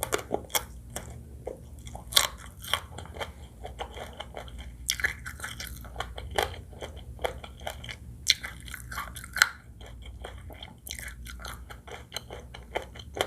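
Close-miked chewing and biting of seafood fried rice with shrimp, crab and squid: irregular sharp crunches and wet mouth clicks, with denser, wetter stretches about five seconds in and again around eight to nine seconds, over a low steady hum.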